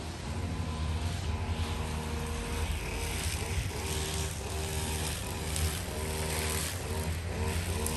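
A vehicle engine running steadily, a low even hum with higher tones coming and going above it.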